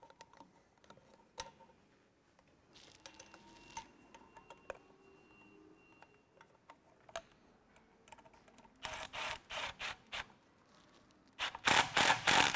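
Cordless ratchet run in short bursts to tighten the nut on a flange clamp: a quick string of pulses about nine seconds in, then a louder, longer run near the end. Before that there are only faint clicks of parts being handled.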